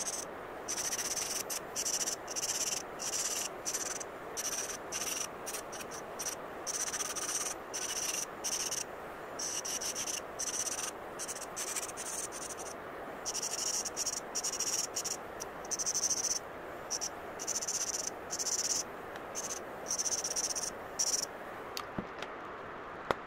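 Saeshin electric nail drill (e-file) set to about 9000 RPM, its fine bit grinding cured gel away from beside rhinestones on a fingernail. A high-pitched scratchy whine comes and goes in many short passes, about one or two a second, and stops shortly before the end.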